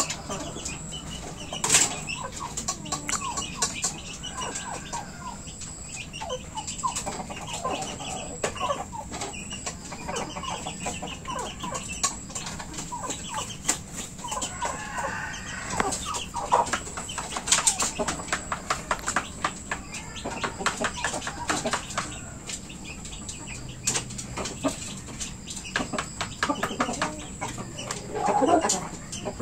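Roosters clucking and flapping their wings, with a rapid run of sharp clicks as a rooster pecks at feed in an aluminium pot. A louder call comes near the end.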